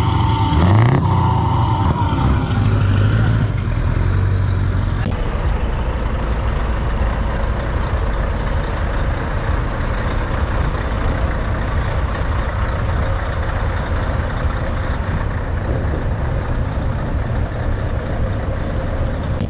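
Scania V8 diesel trucks driving past close by, with a couple of quick rising revs near the start, then the engines running steadily under load as they roll past.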